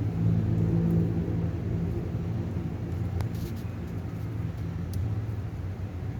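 Steady low motor hum, louder for the first second, with a faint click about three seconds in.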